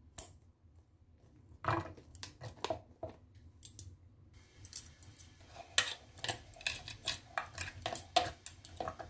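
Chopsticks clicking together and tapping against a plastic food-chopper bowl as chillies, shallots and garlic are dropped in: light clicks and knocks, sparse at first, then a quick run of them in the second half.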